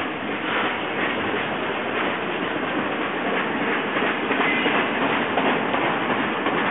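Double-stack intermodal container train's well cars rolling past at close range: a steady noise of steel wheels on rail, with irregular clicks.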